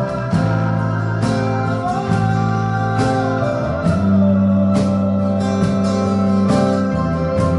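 Instrumental worship music led by guitar, with held chords changing every second or so and a faint voice line in the middle.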